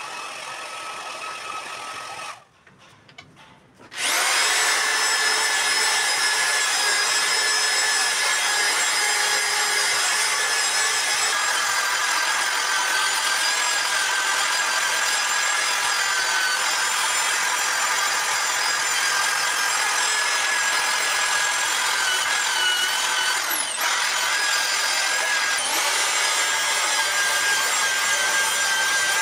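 Electric angle grinder with an abrasive disc running against long-dead cedro rosa root wood: a steady high whine over a grinding rasp. It starts about four seconds in after a brief lull, and its pitch sags and recovers twice near the end as the load changes.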